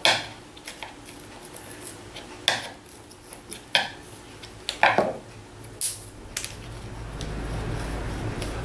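Chisel and thin wooden shims knocking and scraping against an MDF board as the shims are pressed into a tight fit, a handful of separate short clicks about a second apart.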